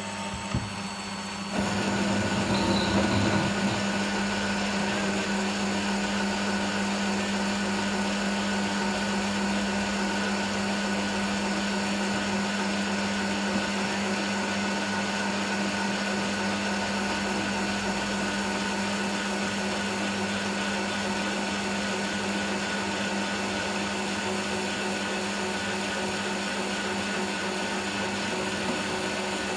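Bosch bench drill press running while its bit drills into a metal plate: the motor's steady hum jumps louder about a second and a half in, then runs on evenly.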